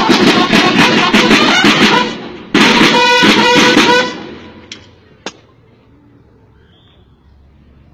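Drumming and music from Aztec-style parade dancers, loud with many sharp beats. It breaks off briefly about two seconds in, comes back, then falls away at about four seconds to a low background with two sharp clicks.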